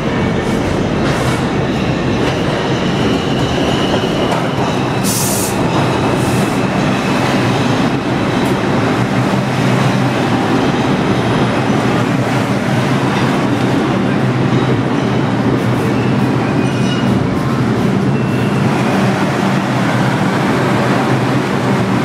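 R142 subway train pulling into an underground station and slowing to a stop: a steady loud rumble of the cars rolling past. A faint high squeal comes about three seconds in, and a short sharp hiss about five seconds in.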